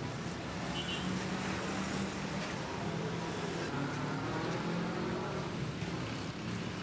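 Steady low hum of street traffic, with the faint sound of an engine passing about halfway through.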